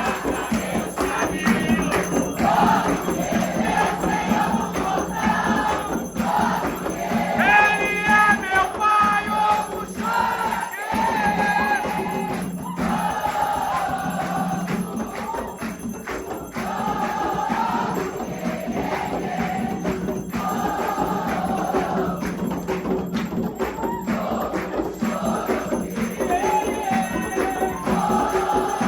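Music from a group of voices singing a chant to percussion, the kind of song sung at a ceremony for the orixá Xangô.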